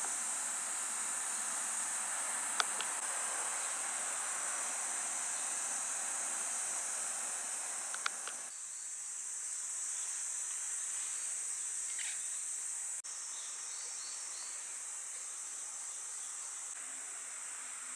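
Steady, high-pitched chorus of insects, such as crickets or cicadas, with a soft background hiss and a few faint clicks. The lower hiss drops away abruptly about eight seconds in, while the insect sound carries on.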